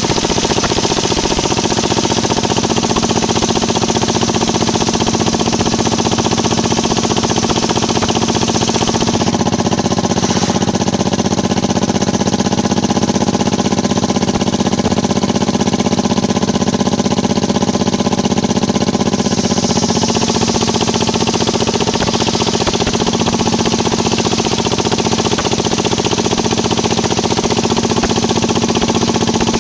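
Engine-driven circular saw bench running steadily with a rattling drone. Its sound changes for about ten seconds in the middle: the higher hiss drops away and the low hum grows stronger.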